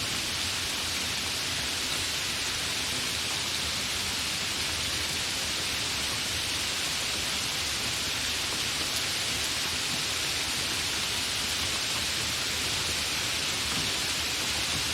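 Steady, continuous rain falling, an even hiss with no breaks or distinct drops standing out.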